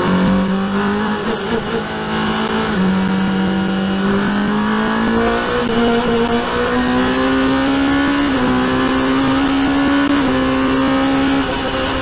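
Race car's engine heard from the onboard camera, accelerating hard. Its pitch climbs steadily and dips briefly at each upshift, about three times.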